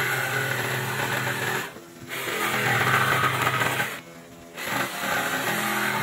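Makita 18V cordless jigsaw cutting through a pallet-wood board, the blade buzzing through the wood in three runs with brief pauses about two seconds and four seconds in.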